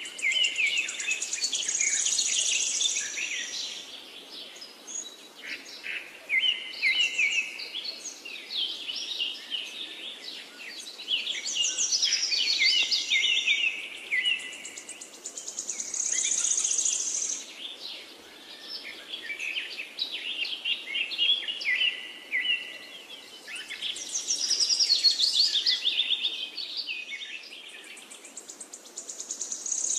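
Songbirds singing: trilled song phrases a few seconds long, repeating every few seconds over a faint steady outdoor background.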